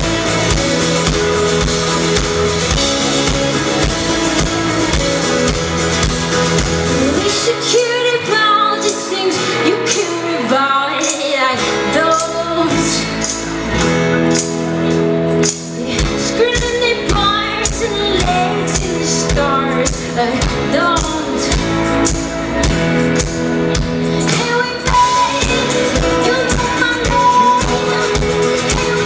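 Live band playing a pop-rock song with a female lead singer. The bass drops out for a few seconds about eight seconds in, leaving voice and higher instruments, then the full band comes back in.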